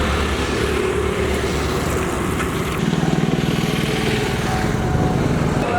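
A motor vehicle's engine running steadily. About halfway through, a stronger, low, evenly pulsing engine note comes in.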